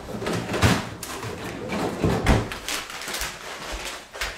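Off-camera handling: a door opening and shutting with a couple of knocks and some rustling while something is fetched.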